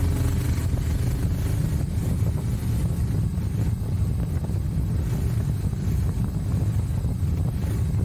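Royal Enfield Himalayan motorcycle with sidecar riding along, its engine running steadily. A deep, constant rumble is mixed with wind buffeting the microphone.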